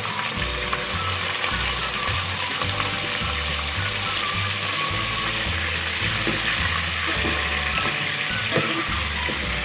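Pieces of beef sizzling steadily as they fry in hot oil in a steel pot, with a few light clicks of a spoon against the pot. Background music with a repeating bass line plays underneath.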